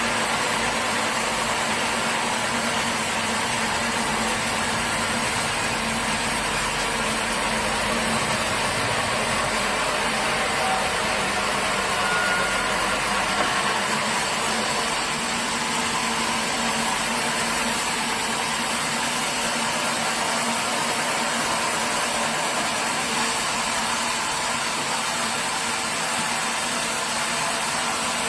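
A sawmill's engine running steadily, a constant machine drone with a faint hum.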